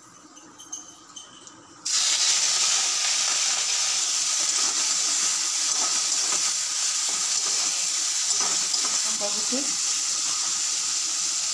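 Raw prawns tipped into hot oil in a karahi, starting to sizzle suddenly and loudly about two seconds in, then frying with a steady sizzle.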